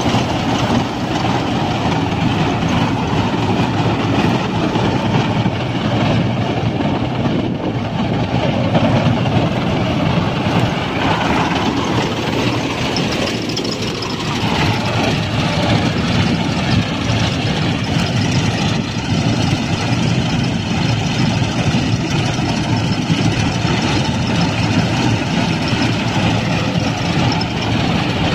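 Combine harvester with a Mercedes diesel engine running steadily under load while cutting wheat, with the engine and the header and threshing machinery making one continuous mechanical drone.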